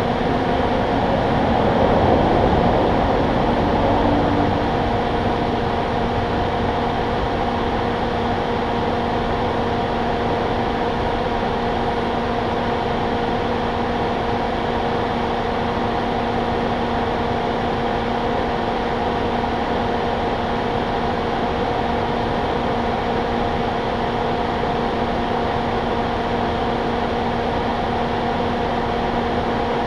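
Steady mechanical hum with several fixed tones over a hiss, from an idling vehicle with its air-conditioning fan running. It swells briefly about two to four seconds in, then settles.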